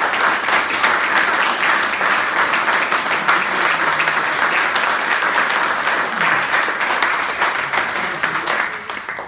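Audience applauding: dense, steady clapping from a roomful of people that tails off near the end.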